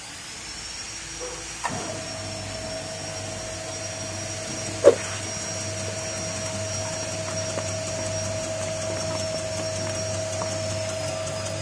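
Electric cassava chip-slicing machine running, its motor and spinning blade disc giving a steady whine, with a lower steady hum joining after about two seconds as cassava is fed in and cut into thin slices. One sharp knock about five seconds in.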